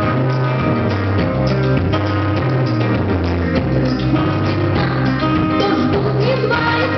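Rock music with electric guitar, bass and drum kit playing a steady beat.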